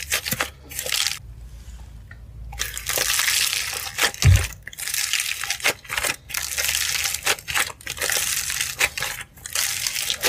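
Dried crispy clay, coated in glitter, being squeezed and pulled apart by hand: dense crackling and crunching in bursts as the dry crust breaks up. A short pause a little after a second in, and a single low thump about four seconds in.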